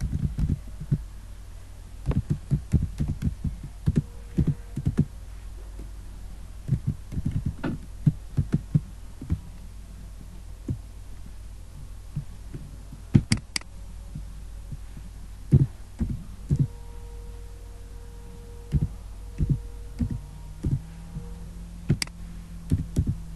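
Computer keyboard typing in irregular short runs of dull taps, with a few sharper clicks, over a steady low hum.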